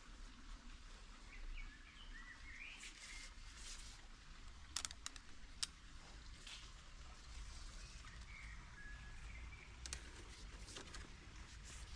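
Faint outdoor garden ambience with birds chirping now and then. A few short sharp clicks come about five seconds in and again near ten seconds, as a potted sapling and its wire are handled.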